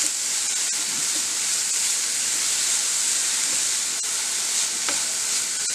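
Chopped onion, capsicum and carrot sizzling steadily in hot oil in a frying pan as they are sautéed and stirred with a silicone spatula.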